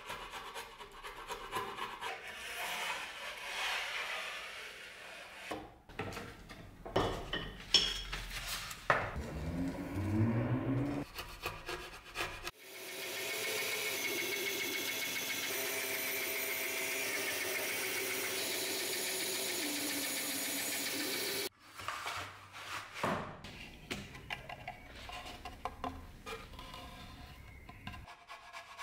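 A chisel shaving and scraping along a strip of wood in repeated strokes. Then a benchtop band saw runs steadily through the wood for about nine seconds and stops abruptly, followed by more scraping and rubbing on the wood.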